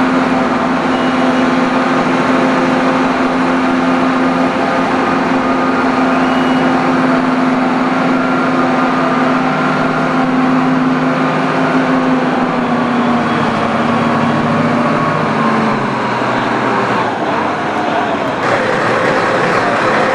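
Engine of a Hyster lift truck running steadily as it carries a shuttle main engine, a constant hum that sinks a little in pitch and fades out about three-quarters of the way through, leaving a steady background noise.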